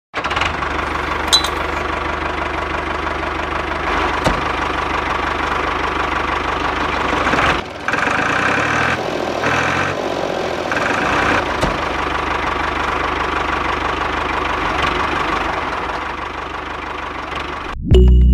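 A motor running steadily, briefly dropping out about seven and a half seconds in.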